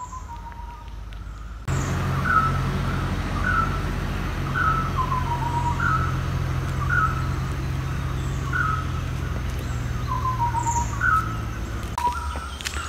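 A bird calling over and over, a short high note about once a second, some notes falling in pitch, over a steady low rumble.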